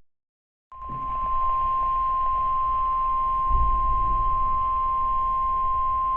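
NOAA Weather Radio 1050 Hz warning alarm tone: after a brief dead moment, one steady high beep starts just under a second in and holds unchanged over a faint radio hiss. It marks the start of a newly issued warning, here a severe thunderstorm warning.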